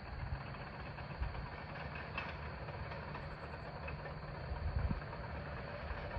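Distant bulldozer's diesel engine running with a low steady rumble, with a few heavier low knocks about five seconds in.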